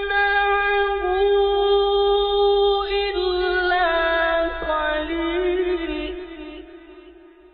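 A man's solo voice reciting the Quran in the melodic mujawwad style, holding one long ornamented note that steps up and down in pitch several times. The note fades away into reverberation near the end.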